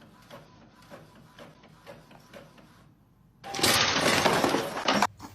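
A loud crash about three and a half seconds in, lasting about a second and a half and stopping abruptly.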